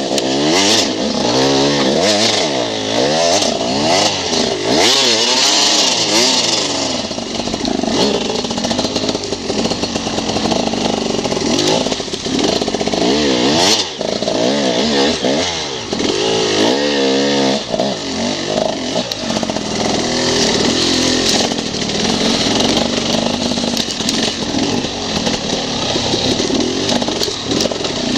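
Enduro dirt bike engine heard from on the bike, revving up and down over and over as the throttle is worked along a rough trail.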